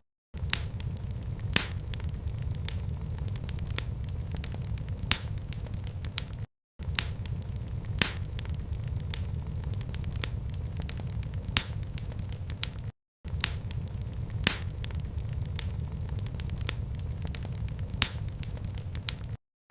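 Fireplace fire crackling: a steady low rumble of flame with sharp pops scattered through it, a few each second and some much louder. The sound drops out completely for a moment about every six and a half seconds.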